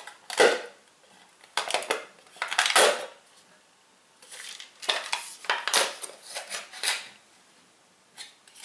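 A can of cocoa coconut chips being opened: the lid is taken off and the foil seal is torn and peeled back. It sounds as a run of short rustling and crinkling bursts with pauses between them.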